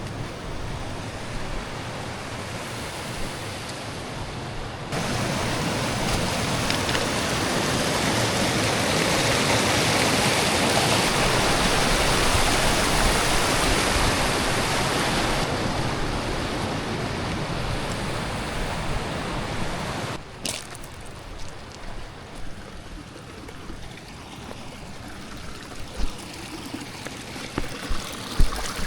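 Rushing water: a steady roar of noise that swells and then fades. The level changes suddenly about five seconds in and again about twenty seconds in, dropping to a quieter, more uneven outdoor sound with a few light knocks near the end.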